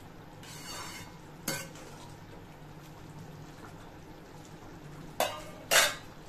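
A metal spoon stirring thick vegetable gravy in a steel kadhai: a soft scrape, a clink about a second and a half in, then two louder metallic clanks of the spoon against the pan near the end. A steady low hum runs underneath.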